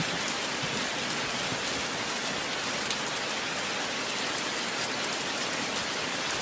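Steady rain falling, an even hiss of downpour with no change throughout.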